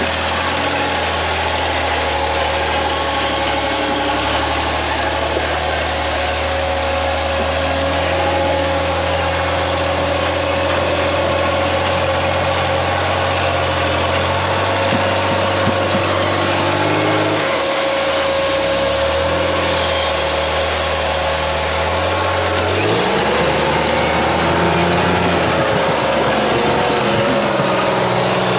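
Rock-crawler buggy's engine running at low, steady revs as it crawls up a steep rock ledge. It drops off briefly about two-thirds of the way through, then revs up and wavers near the end.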